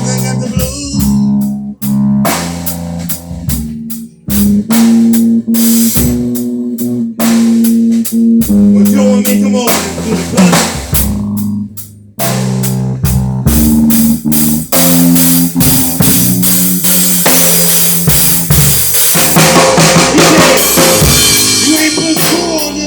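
Music with a drum kit and sustained bass and instrument notes, a steady beat of drum hits throughout, briefly dropping out about twelve seconds in.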